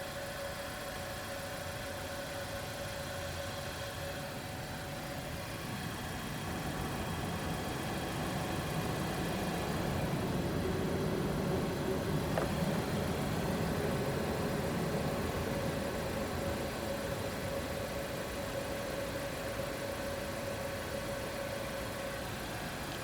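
Car engine idling, with a louder low engine rumble that swells from about six seconds in and eases off again. There is a single click near the middle.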